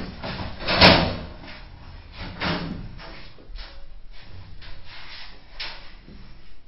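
A loud, sharp bang about a second in, then a lighter knock a couple of seconds later and scattered small knocks, as heard through a CCTV camera's microphone.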